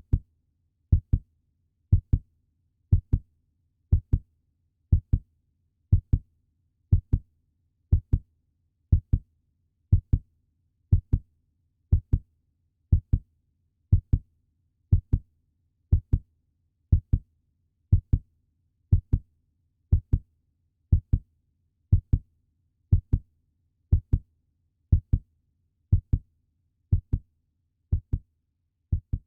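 Puppy heartbeat sound effect: a steady lub-dub double thump about once a second, growing slightly fainter near the end.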